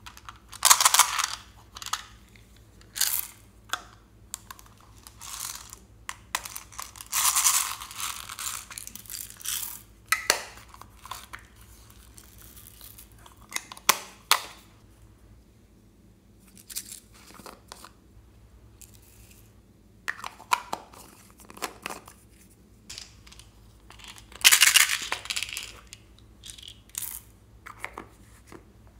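Hard plastic novelty makeup cases being handled and opened by hand: irregular clicks and scraping, rustling noises in bursts, some a second or two long, with short quiet gaps between.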